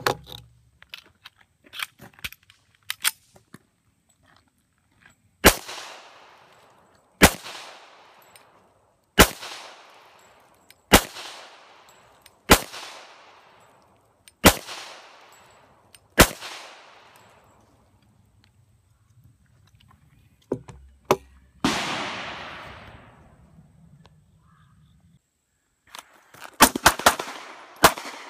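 Handgun shots, each with a trailing echo: a few faint ones at first, then seven loud evenly spaced shots about two seconds apart, a short pause and a few more shots, then a rapid string near the end.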